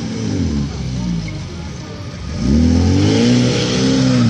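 Off-road 4x4's engine revving while driving through deep sand: the revs fall away in the first second, then climb sharply about two and a half seconds in and are held high under load.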